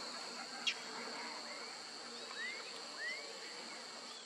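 Wetland forest ambience: a steady high drone of insects with several short rising bird calls in the middle, and one sharp click a little under a second in.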